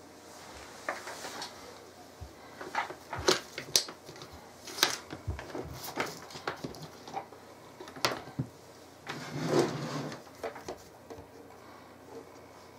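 Handling noise: scattered clicks, taps and a short rustle as a Dremel flexible-shaft handpiece is picked up and positioned against a chip clamped in a bench vise. The rotary tool is not running.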